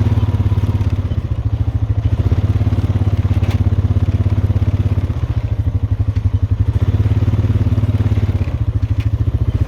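ATV engine running steadily with an even, rapid exhaust pulse as the machine is ridden along a dirt track.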